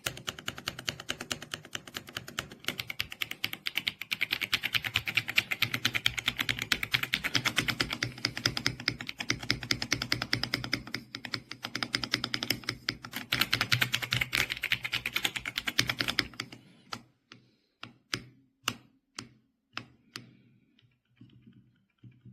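Fast continuous typing on a mechanical keyboard, a dense run of key clacks that stops about three-quarters of the way through, followed by a few separate single key presses.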